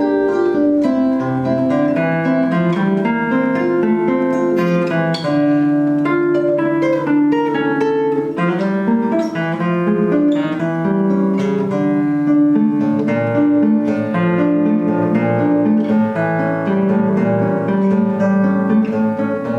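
Acoustic guitar music: plucked notes moving steadily in a continuous melody over lower bass notes.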